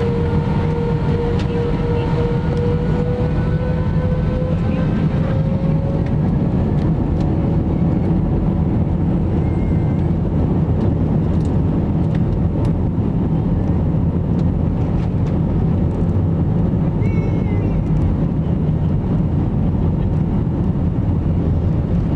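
Airbus A320's jet engines heard from inside the cabin on the takeoff roll: a loud, steady rumble with an engine whine that rises slightly in pitch over the first six seconds.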